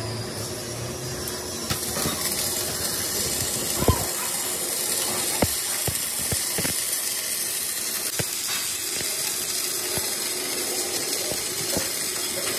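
Electric arc welding on a steel truck wheel rim: the arc's steady crackling hiss, with scattered sharper pops.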